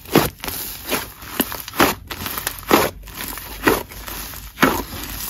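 Clay-heavy strawberry buttercream slime, puffed up with air, being squeezed and pressed by hand. Each press makes a crackling sizzle, about once a second.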